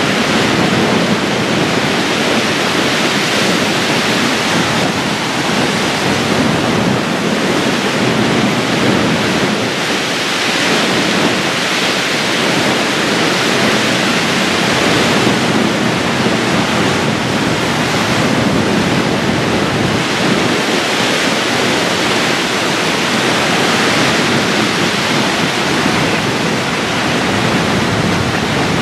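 Steady loud rush of choppy, whitecapped water and waves washing against a rocky shore in a strong gusting wind, swelling and easing slightly.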